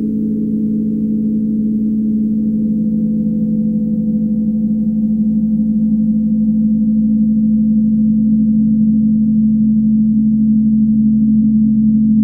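A low, steady drone of several held tones, slowly growing louder, from the film's sound-design score.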